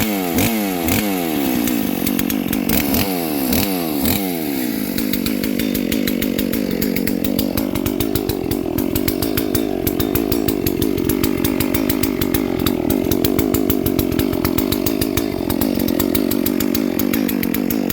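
Clone of a Stihl 440 two-stroke chainsaw running just after starting. For the first four seconds or so it is revved in quick blips, about two a second. After that it holds a steady high speed with a slight waver.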